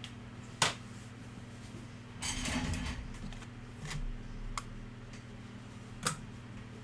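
Cards and packaging handled on a tabletop: three sharp clicks and taps, the first the loudest, with a short rustle about two seconds in, over a steady low electrical hum.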